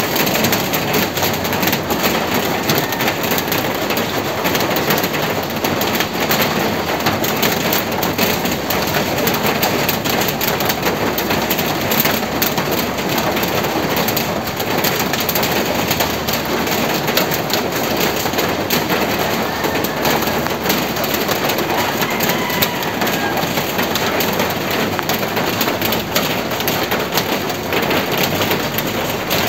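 Heavy rain falling steadily, a dense and even patter of drops on nearby surfaces.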